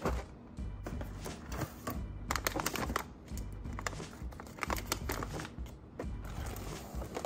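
Small plastic cat-food trays clicking and clattering as they are stacked into a drawer, in quick clusters of knocks, over background music.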